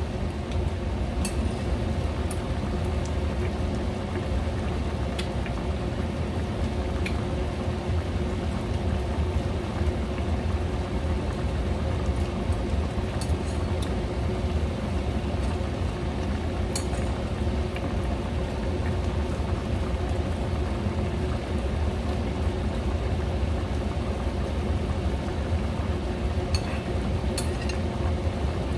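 Stainless steel pot of chicken adobo bubbling at a boil on a gas stove, with a steady low hum underneath and a few faint clicks.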